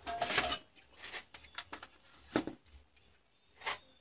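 Handling noise at a workbench: a bundle of thin wires with a plastic connector rustling and clicking as it is laid down, then two light knocks, one a little past halfway and one near the end.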